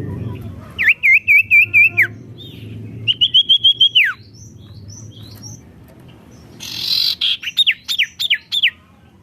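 Sirtu songbird singing loudly: two quick phrases of rapidly repeated clear whistled notes, each ending in a falling slur, then a harsh burst followed by about six sharply falling notes near the end. A faint low hum runs underneath.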